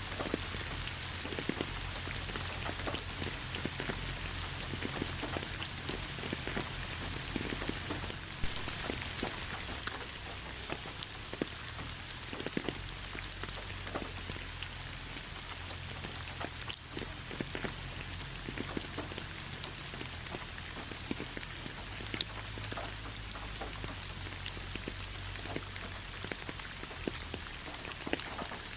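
Steady rain falling: an even hiss with many individual drops ticking, over a low rumble.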